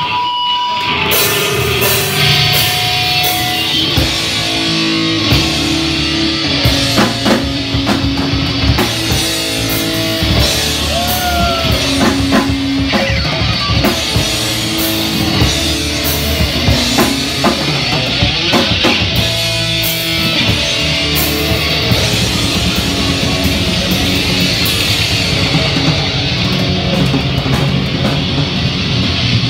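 A live band playing loud heavy music on electric guitars and drum kit, a dense, continuous wall of sound with steady drum hits.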